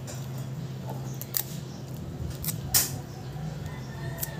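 Four sharp clicks from small repair tools being handled, one louder than the rest, over a steady low hum.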